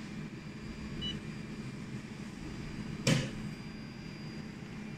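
Steady low hum of a jewelry laser welding machine, with a faint short beep about a second in and a single sharp thump about three seconds in, as the machine is switched back on and begins starting up.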